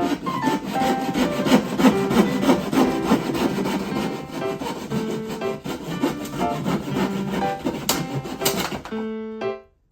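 Wood being sawn, with repeated rasping strokes, over background piano music. The sawing stops about nine seconds in and the music carries on alone.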